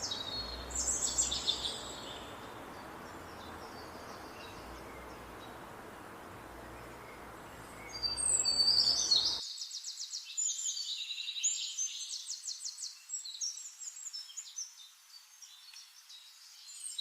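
Forest ambience of songbirds singing over a steady background hiss. The hiss cuts off abruptly about nine seconds in, leaving only birdsong with rapid, repeated trills.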